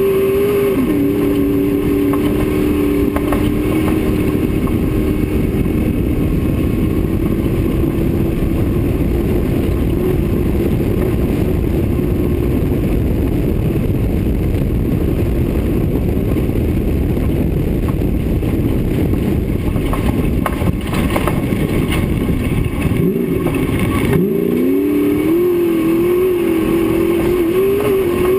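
Off-road race car's engine running hard over a rough dirt track, heard from the hood with heavy road and wind noise. About twenty-three seconds in, the engine note drops sharply as the throttle comes off, then climbs back up as it accelerates again.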